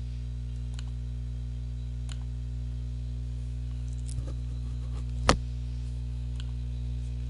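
Steady electrical mains hum through the recording microphone, with a handful of sharp computer mouse clicks; the loudest click comes a little over five seconds in.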